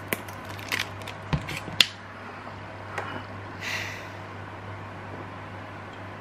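Mayonnaise squeeze bottle sputtering as it is squeezed, with a few sharp spluttering pops of air and sauce in the first two seconds, then a short breathy hiss of air let out near four seconds.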